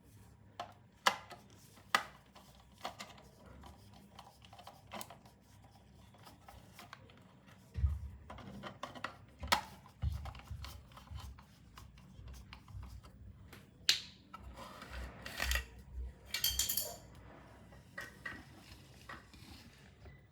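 Hands and small tools working on a pressure switch's housing and wiring: scattered sharp clicks and taps with rubbing and scraping, a cluster of dull knocks about eight to ten seconds in, and a longer scraping stretch around fifteen to seventeen seconds in.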